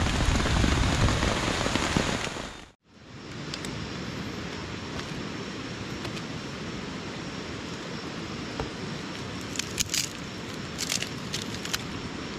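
Heavy rain falling for the first few seconds, cut off suddenly. Then a steady hiss with a handful of sharp knocks in the last few seconds as a machete splits kindling wood.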